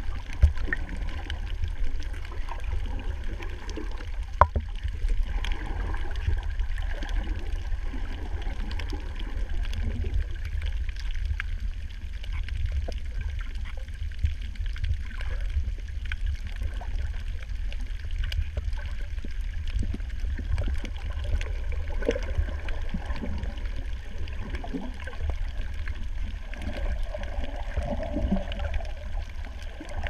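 Underwater ambience: a steady low rumble of moving water with scattered faint clicks.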